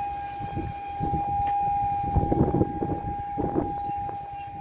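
Heli electric counterbalance stacker running: a steady, even-pitched electric motor whine, with low clunks and rattles from the truck around the middle.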